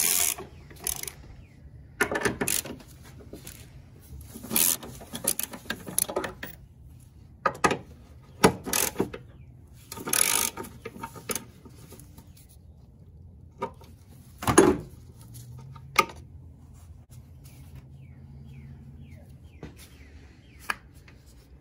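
Socket ratchet clicking in short, irregular bursts as the upper engine mount nuts and bolts are worked loose. There is a louder knock about two thirds of the way through, and the bursts thin out near the end.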